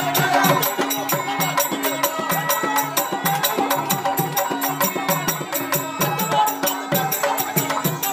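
Traditional Indian folk music with fast, dense percussion and jingling metal, over a repeating low melodic line.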